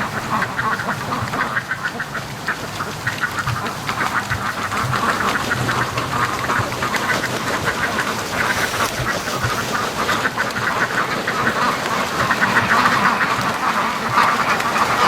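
A flock of domestic ducks, white Pekins among them, quacking continuously in a dense chorus, growing louder over the last few seconds.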